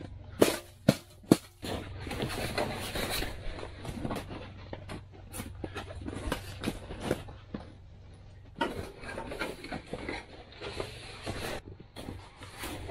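Shovel blade slapping down on the snow floor three times to pack it flat, then irregular crunching, scraping and rustling on the packed snow.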